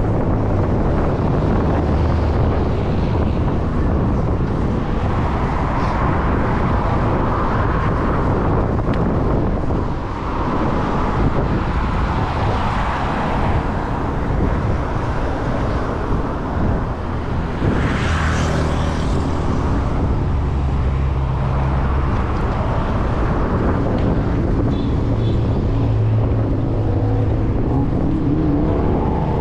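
Wind buffeting a chest-mounted GoPro Hero 10 Black's microphone while riding a bicycle, over the steady noise of road traffic alongside. A brief louder rush about two-thirds of the way through.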